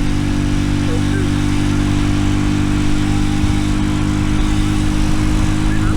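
RPS Racer 140 mini bike's single-cylinder engine running through a stainless steel side-exit exhaust, held at a steady pitch while riding. The new exhaust is loud.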